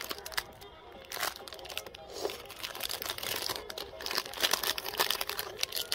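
Plastic ice lolly wrapper being crinkled and torn open by hand: a run of irregular crackles and rustles.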